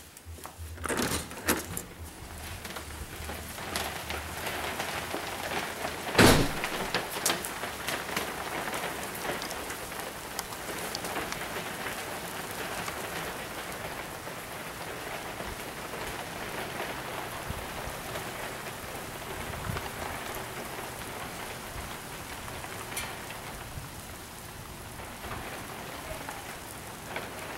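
Small hailstones mixed with rain falling on a concrete driveway and patio: a steady, dense hiss of impacts. A few knocks in the first two seconds, and one loud bang about six seconds in.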